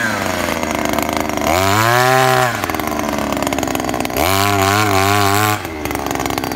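Two-stroke petrol engine of a Sumo KD520 earth auger, its speed dropping off at the start and then revved up twice, about a second and a half in and again after four seconds, settling lower in between as the auger bores into soil.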